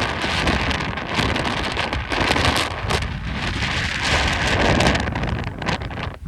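Strong, gusty Santa Ana wind rushing and buffeting the microphone, surging and easing, with a lull near the end.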